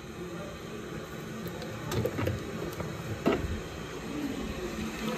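Plastic supplement tubs being picked up and moved about on a kitchen counter: a few light knocks, about two seconds in and again a second later, over a steady low hum.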